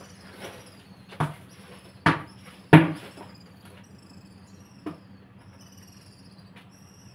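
Sharp snaps and knocks of tree branches being handled and cut, three close together around two seconds in, the loudest nearly three seconds in, with a fainter one near five seconds. High, falling chirps repeat faintly throughout.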